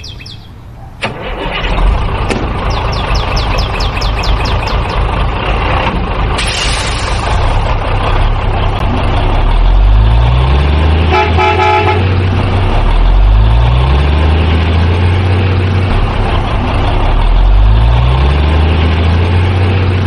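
Heavy-vehicle engine sound running steadily and revving up in rising sweeps about every four seconds, with a short horn honk about halfway through.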